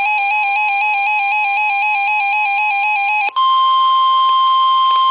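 Weather radio's 1050 Hz warning alarm tone, a steady high beep. For about the first three seconds a radio's own alert warble overlaps it, switching rapidly between two pitches, then cuts off suddenly and leaves the steady tone alone. The tone signals an incoming severe thunderstorm warning.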